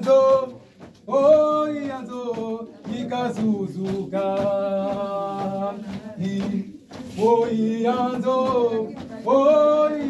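Youth choir singing, men's voices prominent, in long held phrases.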